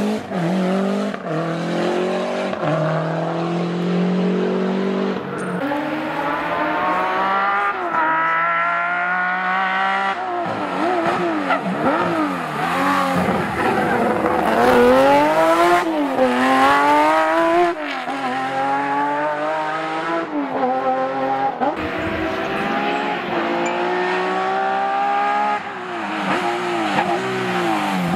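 Historic rally cars, a Lancia Delta and Porsche 911s, driven hard through hairpins. Their engines rev up through the gears, the pitch climbing and dropping back at each shift, again and again as one car follows another.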